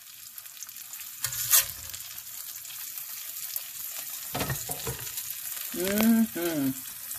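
Eggs and sausage sizzling in a cast iron skillet, a steady crackle of frying fat. A sharp clack comes about a second and a half in, and a brief voice-like sound near the end.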